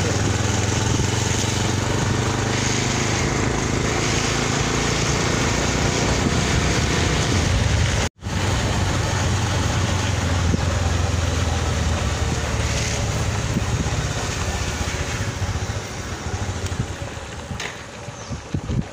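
Motorcycle engine running at a steady pace while riding, with wind and road noise on the microphone; the sound cuts out for an instant about eight seconds in. It eases off and grows quieter over the last few seconds as the bike slows.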